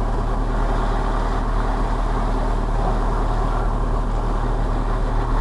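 Van engine running, a steady low drone as heard inside the cab.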